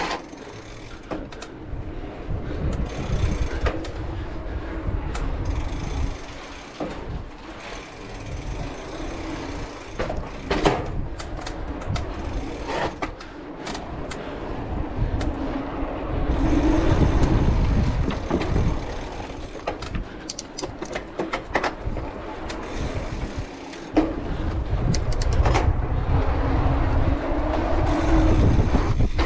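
Cross-country mountain bike rolling over paved alley stones, with sharp rattles and knocks from the bike over bumps and wind buffeting the microphone, which swells into a heavy rumble twice.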